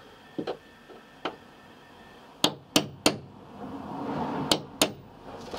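Hammer blows driving a nail into a wooden batten: a few light taps, then five sharp strikes, three in quick succession and then two more, with a short rubbing sound between.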